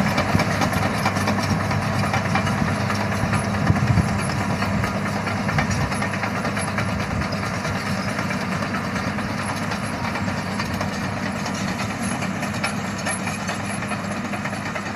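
Komatsu D155 crawler bulldozer's diesel engine running steadily as it pushes material, with the clatter of its steel tracks, slowly fading as the machine moves away.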